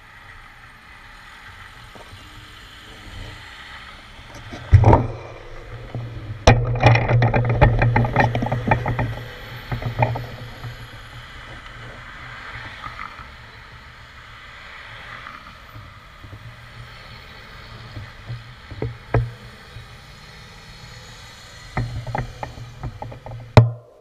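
Knocks and rattling picked up through a handlebar-mounted action camera as the bicycle is handled: one loud knock about five seconds in, a few seconds of rapid rattling soon after, and scattered knocks near the end, over a low steady rumble of road traffic.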